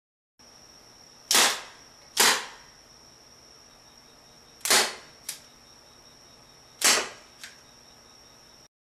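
Wooden rubber band hand gun firing: four sharp snaps as the frame-hook mechanism releases the bands. The first two come about a second apart and the last two about two seconds apart, and each of the last two is followed by a fainter click about half a second later.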